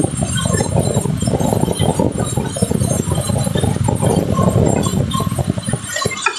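Continuous dense metallic clattering and clinking with short ringing tones, which cuts off abruptly near the end.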